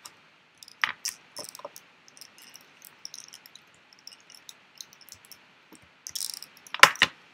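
Plastic segments of a 48-piece Rubik's snake puzzle clicking and rattling as they are twisted, with a few sharper, louder clacks near the end.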